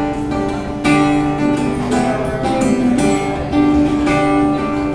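Acoustic guitar strumming chords in a short instrumental bar between sung lines of a song, with fresh strums about once a second and the chord changing every second or so.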